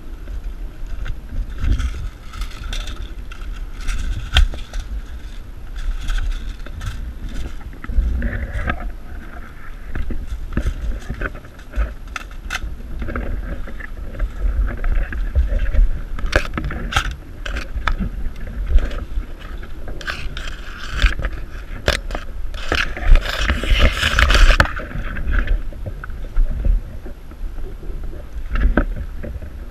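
Wind rumble and rustling handling noise on a body-worn camera microphone, broken by many scattered sharp clicks, with a louder stretch of rustling noise lasting about a second and a half near the 23-second mark.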